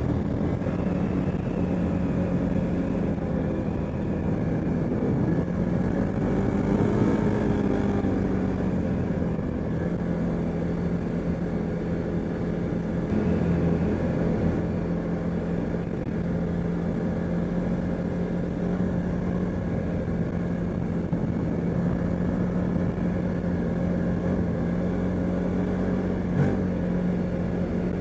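CFMoto ATV engine running at a steady pitch, revs rising briefly a couple of times, on a machine whose exhaust is leaking. A short sharp click sounds near the end.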